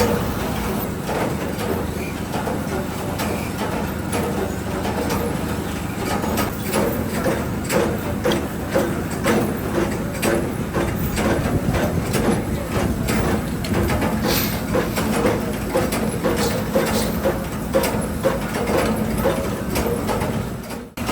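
A machine running steadily with a low hum, with many irregular clicks and knocks over it, briefly dropping away just before the end.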